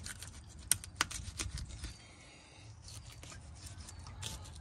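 Long fillet knife cutting down along a catfish's rib cage, a run of sharp clicks and ticks as the blade passes over the rib bones, thickest in the first two seconds and fainter after.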